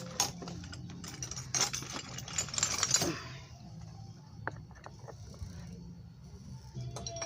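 Metal hand tools clinking and rattling as they are rummaged through, dense clatter for about the first three seconds, then scattered clicks.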